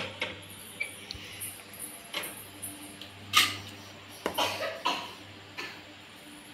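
Steel kitchen bowls and utensils being handled on a counter: scattered clinks and knocks, the loudest about halfway through, over a steady low hum.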